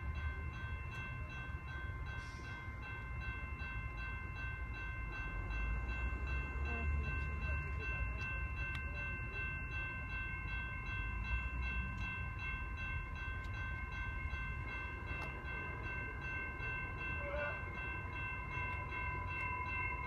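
Commuter train approaching from a distance: a low rumble that swells about a quarter of the way in, under a steady high-pitched whine.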